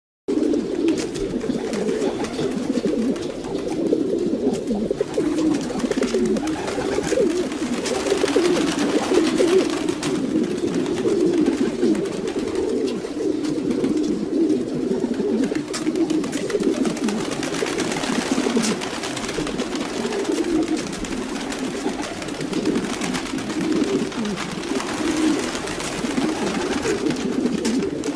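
A flock of domestic pigeons cooing continuously, many low overlapping coos at once.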